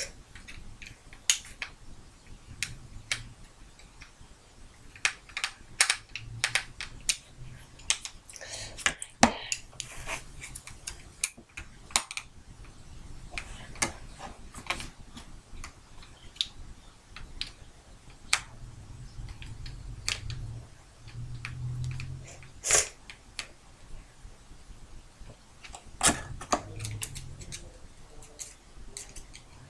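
Irregular sharp clicks and taps of hard plastic as an electronic toy drumstick is handled and worked on by hand, with a few louder knocks among them.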